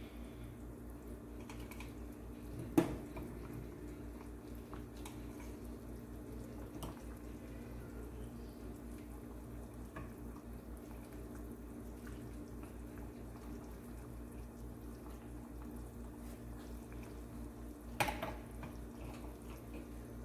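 Metal ladle scooping thick prawn curry from a saucepan into a ceramic bowl: soft pouring and dripping of the curry, with small clinks of the ladle. There is a sharp knock of metal about three seconds in and another near the end, over a steady low hum.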